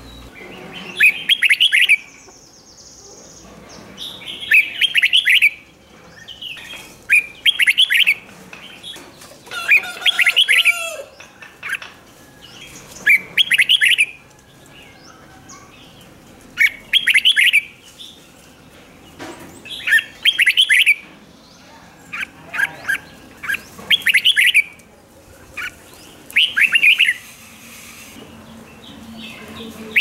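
Red-whiskered bulbul singing: about ten short, quick warbling phrases, each around a second long, with pauses of a second or two between them.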